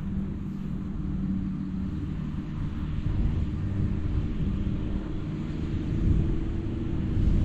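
Wind buffeting the microphone outdoors, a steady low rumble with a faint even hum underneath.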